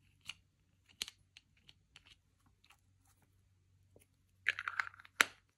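Slime being handled by hand, making scattered small sticky clicks and pops, then a denser run of louder crackles with one sharp click about five seconds in.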